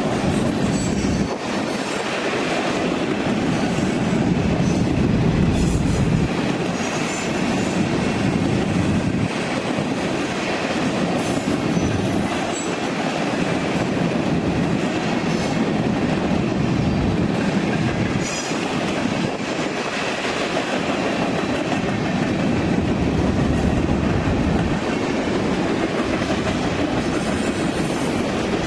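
Freight cars of a BNSF manifest train rolling past, a steady noise of steel wheels on rail.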